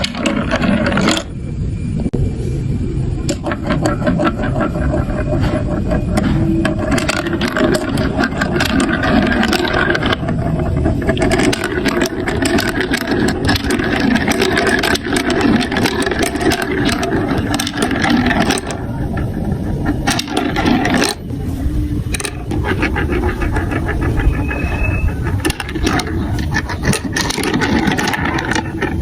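Marbles rolling and clattering down a plastic block marble run: a steady rolling rumble with many small clicks as the balls knock against the track pieces and each other.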